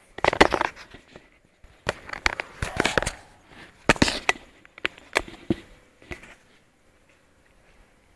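Handling noise: a run of sharp clicks, knocks and rustles for about six seconds, then only faint background.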